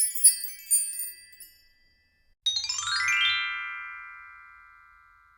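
A tinkling chime jingle fading out, then after a short pause a quick upward run of bell-like chime notes that rings on and slowly fades away.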